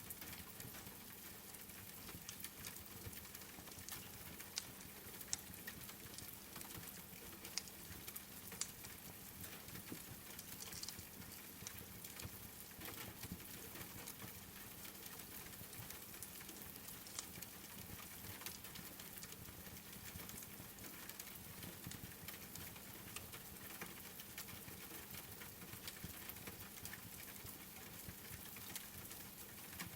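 Steady patter of rain with scattered sharp crackles and pops from a wood fire.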